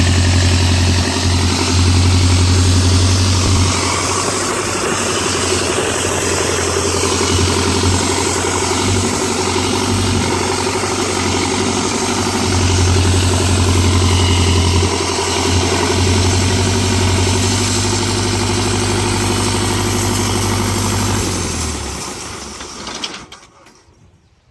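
Engine of a homemade sawmill running steadily, then shut off near the end and dying away to silence.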